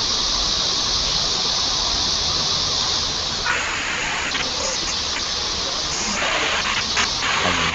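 Steady loud hiss, brightest in the upper treble, changing in texture about three and a half seconds in, with a few faint clicks near the end.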